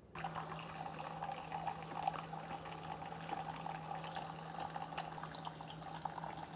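Two Keurig K-Cup coffee makers (a K-Supreme Plus and a K-Express) brewing at once: a steady low pump hum under the sound of hot coffee streaming into glass mugs.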